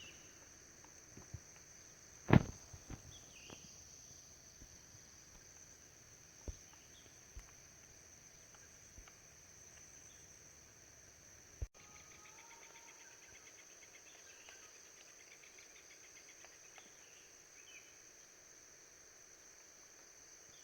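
Forest ambience dominated by a steady high-pitched insect drone of cicadas or crickets. A few scattered sharp knocks come through, the loudest about two seconds in, with faint short bird chirps and a brief rapid ticking run a little past halfway.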